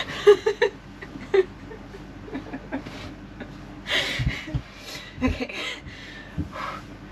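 Soft laughter and giggling with a few murmured words, and a couple of dull low bumps about four to five seconds in.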